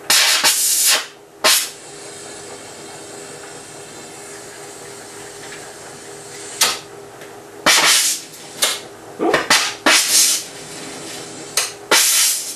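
Glassworking hand torch hissing in about ten sudden loud gas bursts, clustered at the start and through the second half, over a steady hiss and hum from the running glass lathe and its burners.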